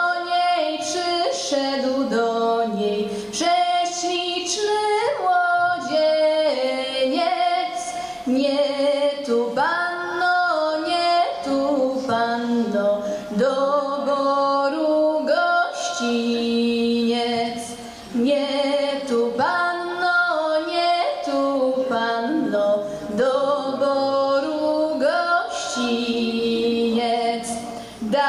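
A women's folk vocal ensemble singing a Polish folk song unaccompanied, with a young woman's lead voice at the front. The singing pauses briefly between phrases, once about eighteen seconds in.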